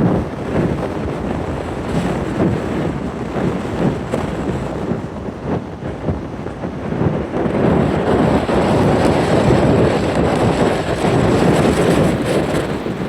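Strong wind buffeting the microphone as a steady rushing noise, gusting louder for several seconds in the second half.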